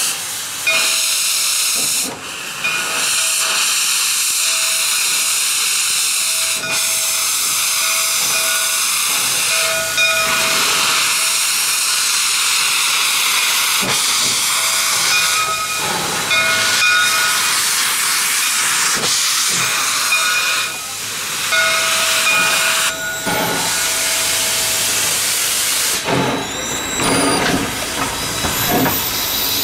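A 1920 Baldwin 0-6-0 steam switcher venting steam in a loud, steady hiss, with faint thin tones coming and going through it.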